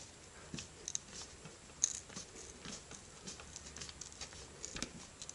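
Faint, scattered clicks and short scrapes of a hand screwdriver turning small self-tapping screws out of a cheap cordless impact driver's housing.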